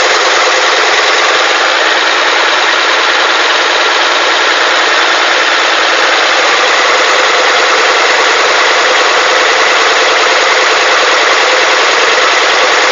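Diesel engine of an old FNM (Alfa Romeo) truck running steadily, with little bass.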